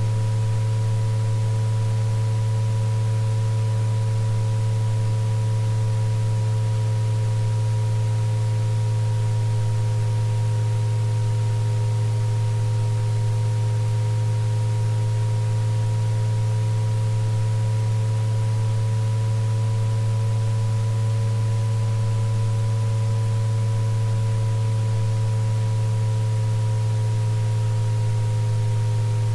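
Electronically generated tones of a tinnitus-relief frequency track: a loud, steady low hum layered with several fainter, higher tones that drift slightly in pitch, over a faint even hiss.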